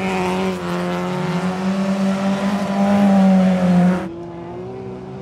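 Folkrace cars' engines running hard at high revs, a steady engine note over a loud hiss. It cuts off abruptly about four seconds in, dropping to a quieter, more distant engine sound.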